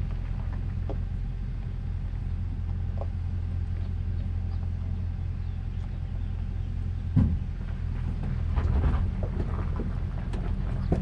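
Off-road vehicle's engine running at low speed with a steady low drone as it crawls over a rocky dirt trail. A single sharp thump about seven seconds in, then bursts of rattling and clicking as the vehicle jolts over stones.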